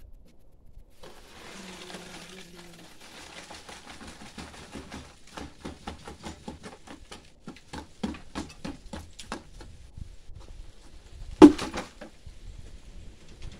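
Wet concrete sliding out of a bucket into a column's board formwork, then a run of quick knocks, about three a second, as the concrete is worked down. One sharp knock, the loudest sound, comes near the end.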